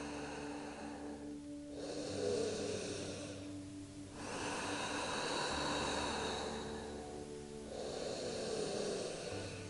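A person breathing deeply and audibly: three long breaths of two to three seconds each, loud and airy, over soft background music with sustained tones.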